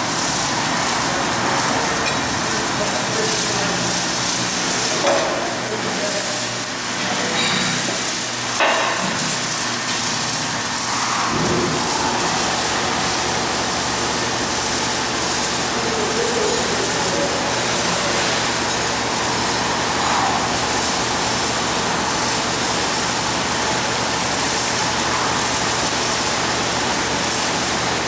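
Steady, loud hiss of workshop noise, with two short knocks about five and nine seconds in.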